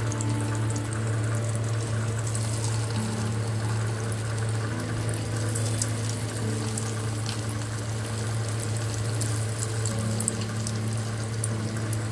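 Potato bites deep-frying in hot oil in an aluminium kadhai: a steady bubbling sizzle with fine crackles throughout, over a low steady hum.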